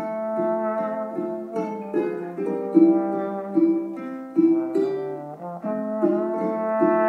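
Trombone playing a slow melody whose notes slide from one to the next, over a steady rhythmic accompaniment of plucked strings.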